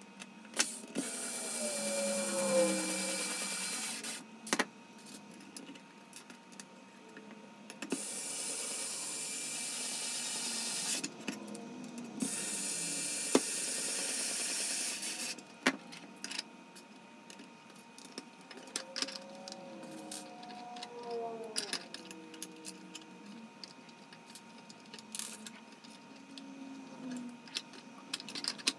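Cordless electric screwdriver driving M3 screws into 3D-printed PLA planks in three runs of a few seconds each, the second and third close together. Between and after the runs come small clicks and clatter of plastic planks and screws being handled.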